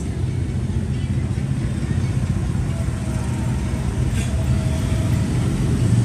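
Steady low rumble of road traffic going past.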